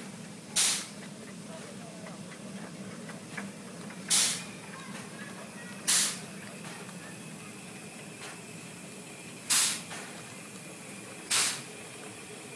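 Ride-on miniature live-steam locomotive giving five short, sharp bursts of steam hiss at uneven intervals, over a steady low hum.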